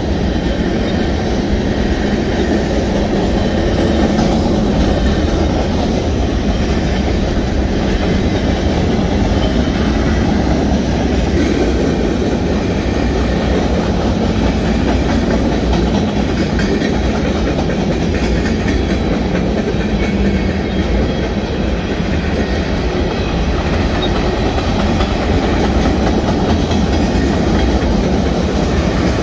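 Freight train cars rolling past close by, their wheels clacking over the rail joints in a steady, loud run of rail noise.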